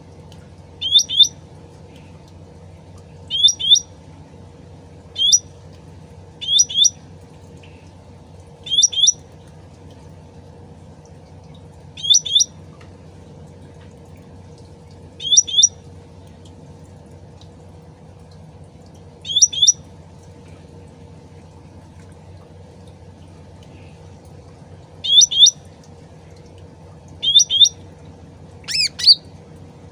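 Cucak rante (cucak ranting) bird calling: short, sharp doubled chirps repeated every two to three seconds, with a louder, longer call near the end. A steady low background sound runs underneath.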